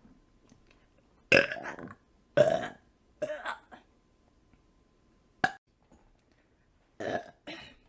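A woman burping several times: three burps in quick succession starting about a second in, the first two the loudest, then a short, sharp one in the middle and two more close together near the end.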